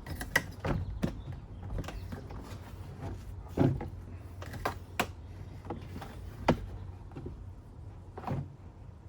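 Plastic pop clips on a van's interior door panel snapping and knocking as the panel is pried off, a scattering of sharp clicks about a second apart.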